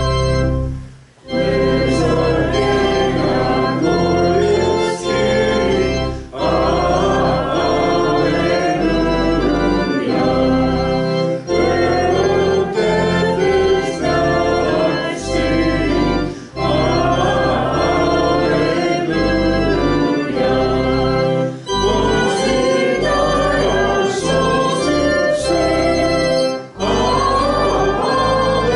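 Church organ playing a hymn tune, in phrases of about five seconds with a short break between each line.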